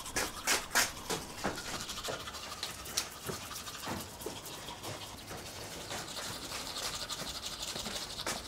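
Toothbrush scrubbing teeth in quick, uneven strokes.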